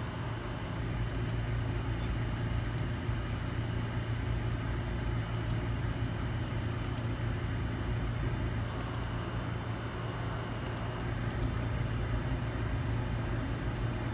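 Steady low mechanical hum of running machinery, with faint high ticks in pairs every second or two.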